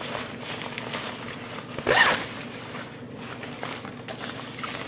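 Plastic zipper on a ripstop nylon daypack being run back and forth, sliding smoothly without snagging, with one quick, louder zip about two seconds in.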